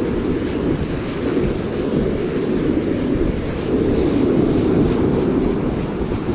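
Wind buffeting the microphone over the steady rush of ocean surf breaking on the beach.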